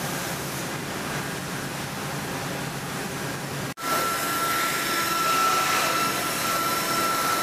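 Steady noise of woodworking shop machinery. After a cut about four seconds in, a KOMO CNC router runs over cabinet panels, with a steady high whine on top of the noise.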